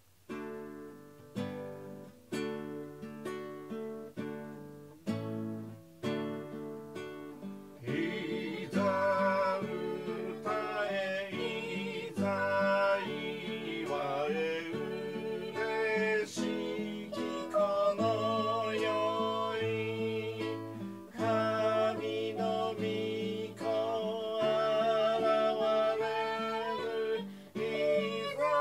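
Acoustic guitar playing chords, with singing joining about eight seconds in: a hymn sung to guitar accompaniment.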